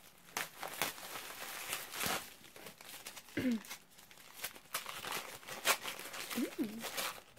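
Candle packaging crinkling and rustling as it is unwrapped by hand, a continuous run of crackles and short rustles.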